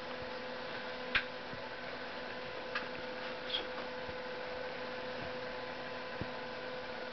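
Steady electrical hum and hiss, with a few faint short clicks about one, three and three and a half seconds in.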